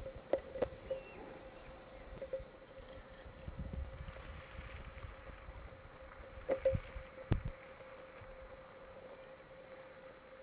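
Outdoor camcorder sound: wind rumbling on the microphone over a steady faint hum, with a few sharp knocks from handling the camera, the loudest a cluster about two thirds of the way through.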